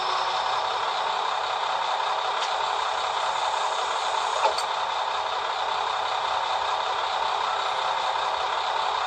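Recorded diesel railcar engine sound from a ZIMO sound decoder, played through a TT-scale model railcar's small speaker. It runs steadily and sounds thin, with no low end, and there is one short click about four and a half seconds in.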